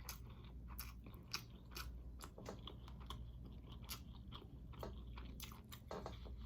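Close-miked chewing and biting of crispy chicken wings: irregular wet crunches and clicks with mouth sounds.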